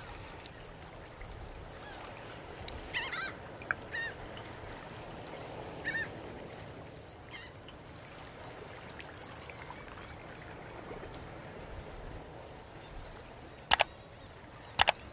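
Birds calling several times, short wavering calls, over a steady background hiss, with two sharp clicks near the end.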